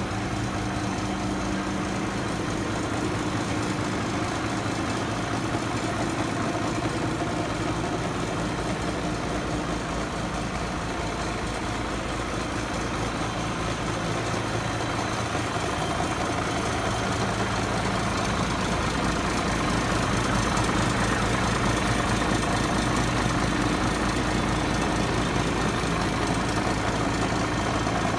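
Iveco Stralis AS440S42 tractor unit's six-cylinder diesel engine idling steadily, growing a little louder in the second half.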